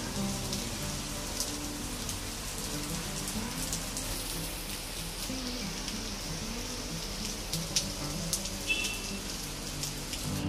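Rain falling steadily, with sharp drop hits now and then standing out from the even hiss.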